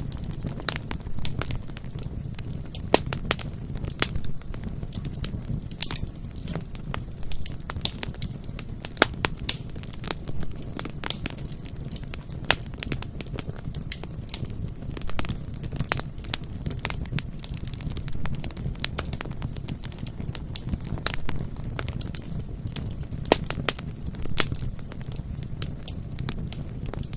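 Bonfire burning, with frequent irregular crackles and pops from the wood over a steady low rumble.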